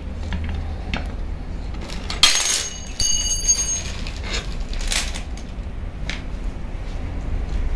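Small metallic clicks and scrapes as an Allen key turns out a bolt on a metal drill-stand bracket, with a short ringing metal clink about three seconds in. A steady low hum runs underneath.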